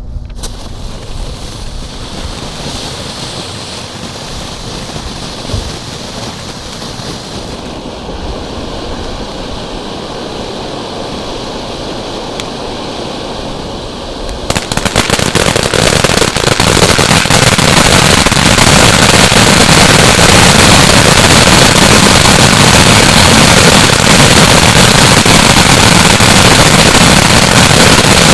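Phantom Crown Jewel ground fountain firework spraying with a steady hiss. About halfway through it suddenly gets much louder and turns into a dense, crackling spray.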